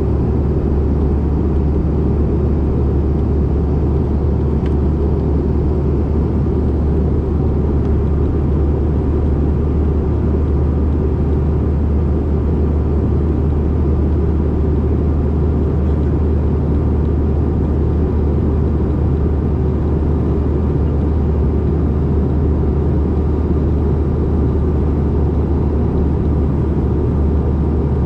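Steady cabin drone inside a Bombardier CRJ-550 regional jet in flight: a deep rumble of its twin rear-mounted GE CF34 turbofans and the airflow over the fuselage, with a faint steady whine above it.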